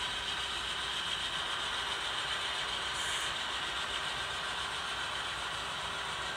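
HO scale model freight cars rolling slowly and steadily over the track, an even rolling noise of small metal wheels on rail.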